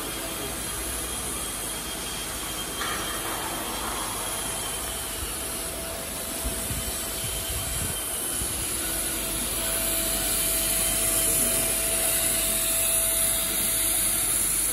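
Five-axis CNC router's spindle running steadily while its cutter carves a small model car: a constant high whine over machine hum, growing a little louder with a steady mid tone coming in after about ten seconds.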